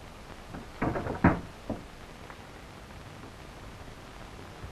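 A short cluster of knocks about a second in, then one more a moment later, over a steady hiss.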